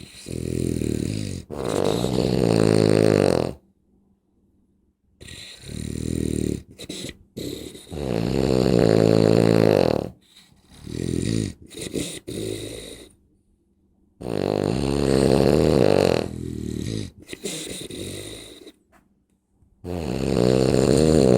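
A woman snoring very loudly: long, pitched, droning snores that rise and fall in pitch, coming in groups with short silent pauses between breaths.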